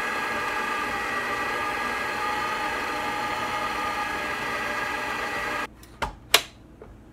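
FIMEI tilt-head stand mixer's motor running steadily with a whine while the flat beater mixes cookie dough, then cutting off suddenly near the end. Two sharp clacks follow as the mixer head is tilted up.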